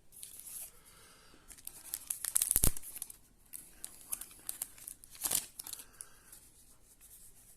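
Crinkling and tearing of a trading-card pack wrapper, in crackly bursts that are loudest a couple of seconds in, with another sharp crackle about five seconds in.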